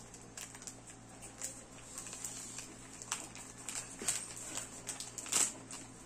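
Thin clear plastic bag crinkling as it is handled around a speed cube, in a run of small irregular crackles, with the loudest crackle near the end.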